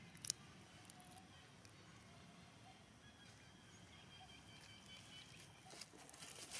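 Near silence: faint ambient hiss with one sharp click just after the start, then dry leaf litter beginning to rustle under a young macaque's feet near the end.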